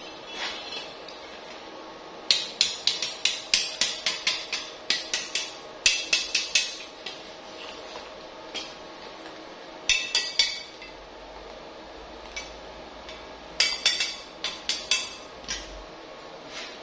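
Rapid sharp metal-on-metal taps and clinks on small steel parts, about five a second, each with a brief ring, in three runs: a long one early, a short one around the middle and another near the end.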